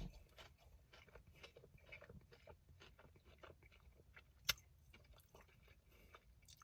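Faint chewing of a mouthful of fried chicken sandwich: soft, irregular mouth clicks and crunches, with one sharper crunch about four and a half seconds in.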